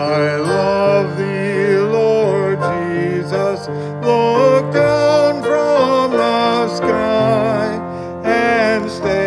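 A woman singing a carol with a clear vibrato, accompanied by a grand piano.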